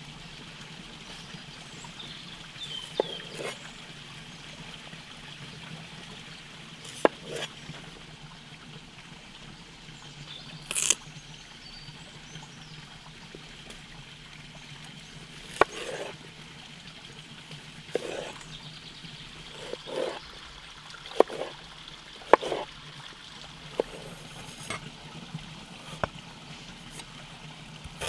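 Chef's knife cutting potatoes and ginger on a wooden cutting board, in scattered sharp knocks, over the steady trickle of a small forest stream.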